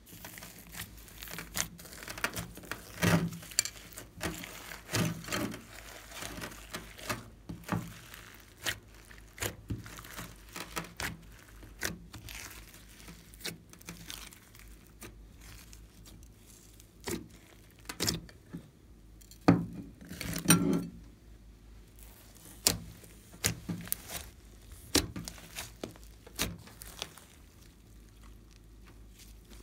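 Hands pressing, folding and stretching glossy slime mixed with foam beads and glitter: irregular sticky crackles and pops, with louder bursts of squishing a few times.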